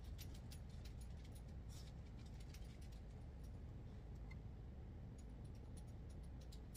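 Faint, irregular little clicks and taps of a Sharpie marker tip dotting a jar lid as the lid is turned in the hands, busiest in the first few seconds.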